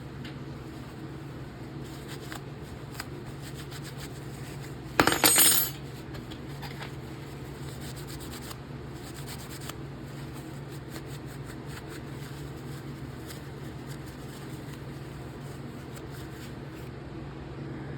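Small metal folding-knife parts being handled on a work surface: faint scattered clicks, and one loud metallic clatter about five seconds in, over a steady background hum.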